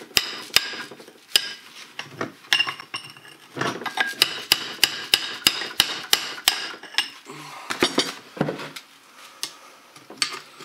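Hammer strikes on the steel cover lid of a LuAZ-969M portal axle hub, knocking it loose in place of the special key. It is a quick run of sharp metal-on-metal taps, each ringing briefly, about three a second. The taps stop about seven seconds in, leaving a few softer knocks.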